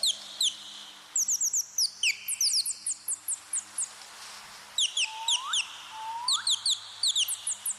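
Birds chirping: runs of quick, high chirps that each drop in pitch, with two short rising whistles about five and six seconds in.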